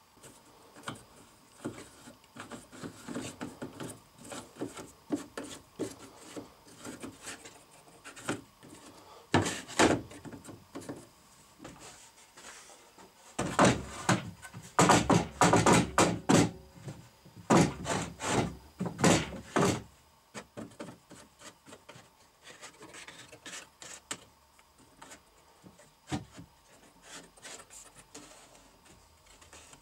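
Wood being handled on a wooden workbench: scattered light knocks and rubbing, with a louder stretch of scraping and knocking in the middle as a long rough plank is slid and set down on the bench.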